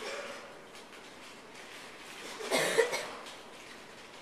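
A person coughing: a short burst of two coughs about two and a half seconds in, the loudest sound here, heard over the quiet hush of the reading room.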